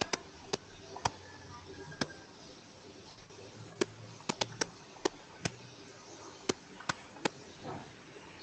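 Irregular sharp clicks from working a computer, about fifteen spread unevenly, some in quick runs of two or three, over a faint steady hiss.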